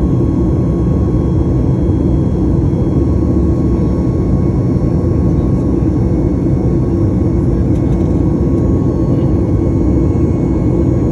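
Boeing jet airliner's engines during take-off, a steady low rumble with a faint steady tone above it.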